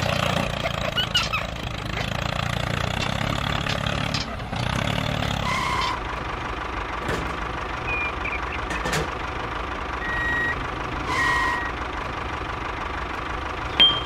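Tractor engine idling steadily, with a few short high beeps now and then and a sharp click near the end.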